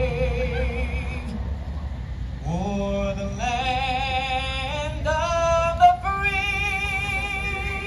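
Live band's singer holding long notes: one with vibrato at the start, then several notes that slide up into place, and a long held note near the end.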